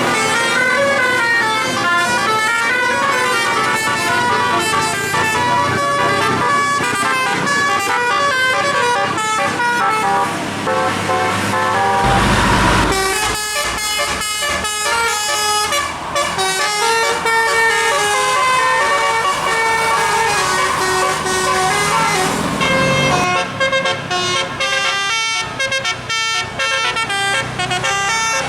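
Bus 'telolet' musical air horn playing a fast tune of short stepped notes. About twelve seconds in there is a brief loud rush of noise.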